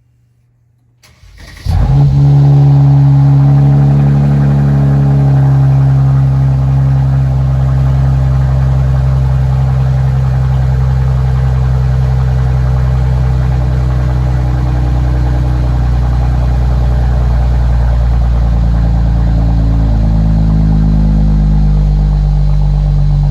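Mercedes-AMG C43's twin-turbo V6 cold-starting through a mufflerless AWE Track Edition catback exhaust: a sudden loud flare about a second and a half in, then a loud, steady high idle.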